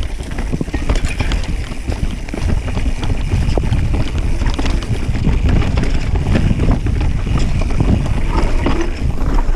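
Mountain bike clattering and rattling over rocky singletrack, many quick knocks and clicks from the bike, over a deep rumble of wind on the microphone.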